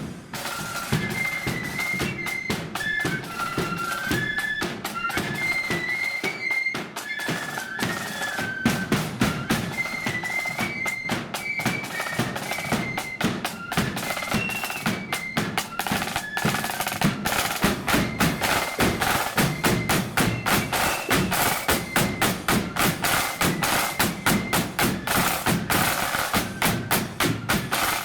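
Marching flute band playing a march: a high flute melody over snare and bass drums. About halfway in the tune fades back and the drums carry on in a steady, heavy beat.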